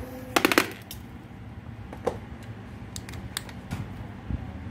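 Hard plastic clicks and clacks from a Hitachi 12V cordless drill being handled: a quick run of sharp clicks about half a second in, then scattered lighter clicks, with the motor not yet running.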